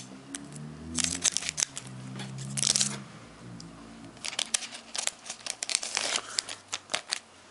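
Hands handling a Pokémon card booster pack and its cards: foil wrapper crinkling and tearing twice, with a run of sharp clicks and snaps as the cards are slid and flicked.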